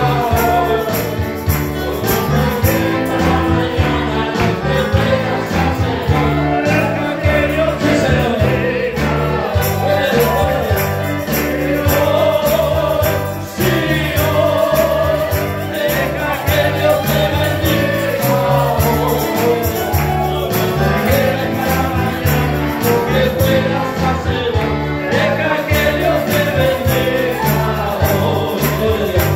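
Live Christian praise music: a group of voices singing together over a band with a bass line and a steady drum beat.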